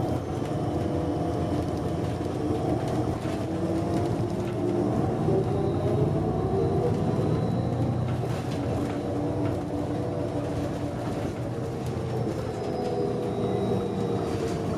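Cummins ISM diesel engine and Voith automatic transmission of a New Flyer D40LFR transit bus, heard from inside the passenger cabin while the bus is under way. The engine drone is steady, its pitch rising and falling slightly, over road noise with a few light knocks from the body.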